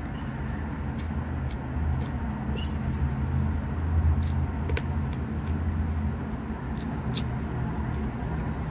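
Close-up eating sounds: wet mouth clicks and lip smacks as chicken and rice eaten by hand are chewed, scattered irregularly over a steady low machine hum.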